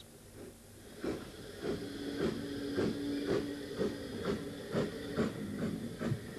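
Narrow-gauge steam tank locomotive, the Lough Swilly Railway's 4-6-2T No. 10, working a goods train past, with regular exhaust beats about two a second over a steady low tone. The rhythm starts about a second in.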